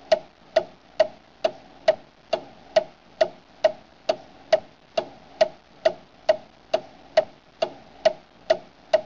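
Steady, evenly spaced ticking, a little over two sharp ticks a second, each with a short pitched ring.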